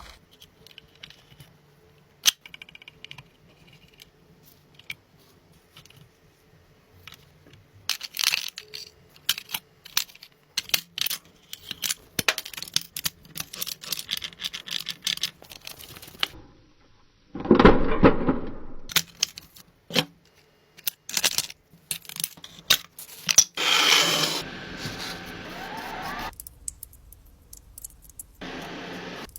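A string of sharp clicks, taps and scrapes from small hard parts being handled and worked on. Past the middle comes one short, loud burst of noise, and near the end a few seconds of steadier scraping.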